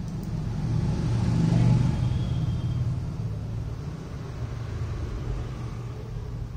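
A low rumble that swells to a peak about a second and a half in, then slowly fades.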